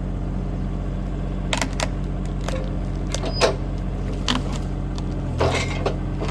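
Bobcat E35 mini excavator's diesel engine running steadily, with a few sharp clicks and knocks from about a second and a half in to past the middle, and a brief scraping rustle near the end.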